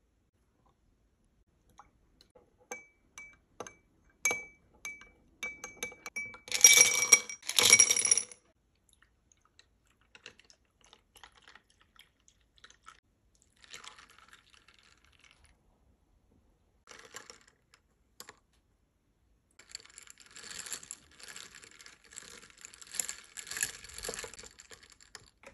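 Ice cubes dropping into a tall drinking glass, with the loudest clatter of clinks about six to eight seconds in. Milk is then poured quietly from a carton, and near the end a spoon stirs the iced drink, clinking rapidly against the ice and the glass.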